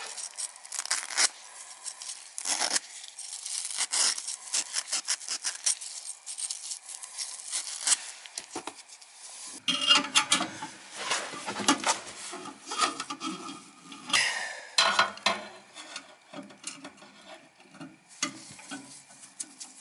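Gas furnace flame sensor rod being rubbed clean, a run of quick, irregular scraping strokes with some handling of metal parts mixed in.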